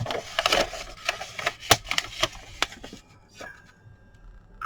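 Paper and cardboard packaging being handled: a rustling with a run of sharp clicks and taps, dying down to a few light ticks after about three seconds.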